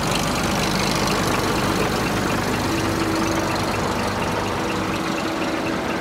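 Scania P340 truck's five-cylinder diesel engine idling steadily, with a faint regular ticking over the engine sound.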